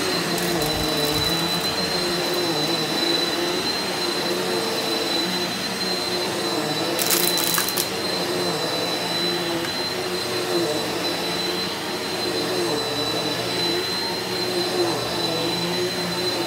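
Eureka NEU180B Power Speed upright vacuum running steadily on carpet, its motor whine holding a high steady tone while the lower pitch wavers slightly as it is worked back and forth. A brief crackle cuts in about seven seconds in.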